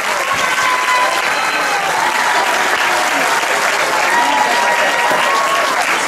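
Audience applauding and cheering, with drawn-out whoops rising and falling over steady clapping.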